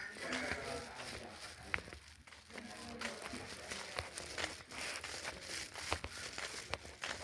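Faint rustling and crinkling with scattered small clicks and knocks.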